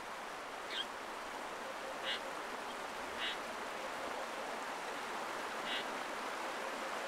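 Steady rush of flowing water, with a bird giving four short, raspy calls a second or two apart.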